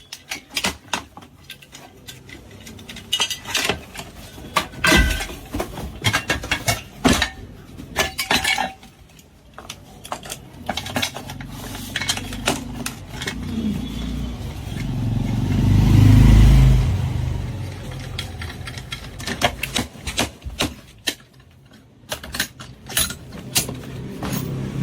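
Repeated sharp clicks, clinks and knocks, with a low rumble that swells and fades about two-thirds of the way through.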